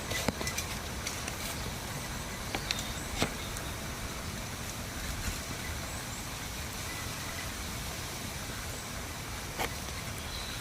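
Steady outdoor background noise with a few light clicks scattered through it.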